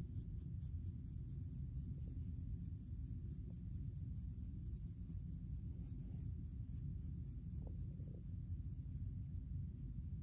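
Fine-tooth plastic comb scratching across a flaky, dandruff-covered scalp in short hair, in quick repeated strokes, over a steady low rumble.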